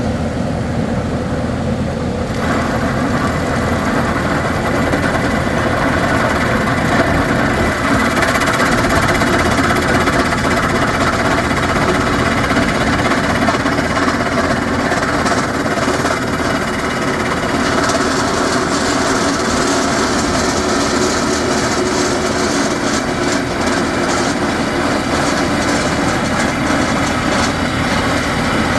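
Rock-drilling rig and its engine running steadily. A harsher, higher noise joins about two seconds in and grows brighter past the middle.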